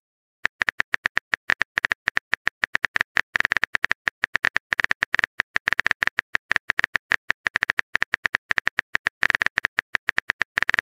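Phone keyboard typing sound effect: a rapid, uneven run of short clicks.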